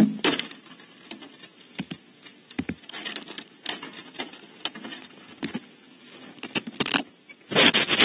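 Irregular clicks and scratches from barn owls moving on wood, growing into a louder, denser scuffle near the end.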